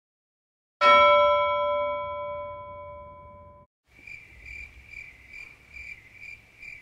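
A single bell-like chime about a second in, ringing and fading over about three seconds. Then, after a short gap, a cricket chirping steadily, about two chirps a second.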